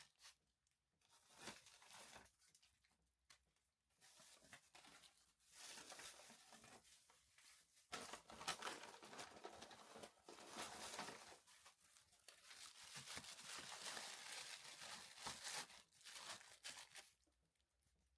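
Faint, on-and-off crinkling and rustling of plastic food packaging and freezer bags as frozen items are handled, with short quiet gaps between spells.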